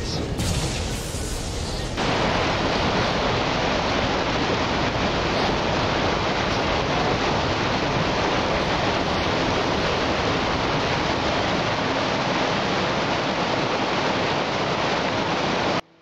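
Steady rush of falling water from a small waterfall, a loud even hiss with no pitch, which shifts about two seconds in and cuts off suddenly near the end.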